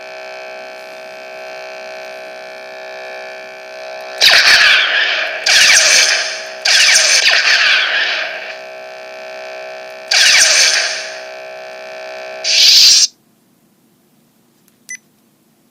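Lightsaber sound board (Teensysaber electronics) playing through the hilt's speaker: a steady electric hum with five loud swing whooshes, about four, five and a half, seven, ten and twelve and a half seconds in. Right after the last one, about thirteen seconds in, the sound cuts off suddenly, and a faint click follows near the end.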